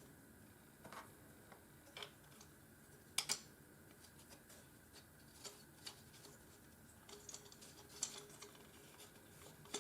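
Faint, scattered clicks and taps of small parts of an aluminium-frame filament spool holder being handled during assembly, with a slightly louder double click about three seconds in and more clicks near the end.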